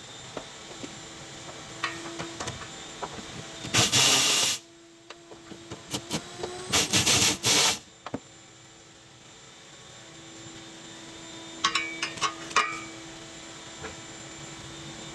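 A power tool running in short bursts during fuel pump removal: one burst a little under a second long about four seconds in, then a few quick bursts around seven seconds. Tool clicks and knocks fall in between, over a steady hum.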